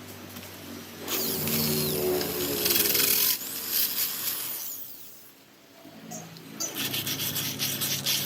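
Glass-drilling machine grinding a 50 mm hole through 10 mm glass: a motor hum under a harsh rasping grind. It starts about a second in, eases off for a moment partway through, then comes back as a rapid scratchy grinding near the end.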